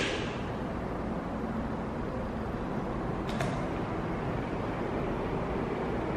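LED wash moving head light running its power-up reset: its cooling fan runs with a steady whir while the motors swing the head, with one faint tick about three seconds in.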